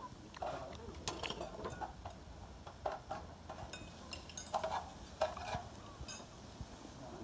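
Metal ladle stirring greens and meat in a shallow pan, knocking and scraping against it in a string of irregular clinks.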